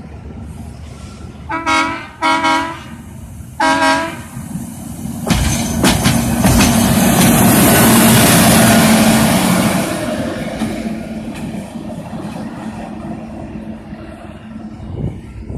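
A rail vehicle's horn gives three short blasts, the last a little longer. Then rail maintenance equipment passes close along the track, rising to its loudest about eight seconds in and fading away.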